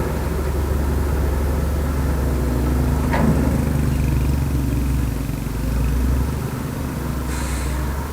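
Heavy diesel engine of earthmoving machinery running steadily, with a single sharp knock about three seconds in and a brief hiss near the end.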